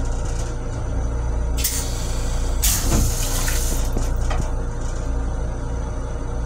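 Metro-North M7 railcar toilet flushing: water hisses into the stainless-steel bowl in two bursts, about one and a half and nearly three seconds in, and swirls down the drain, over a steady low hum.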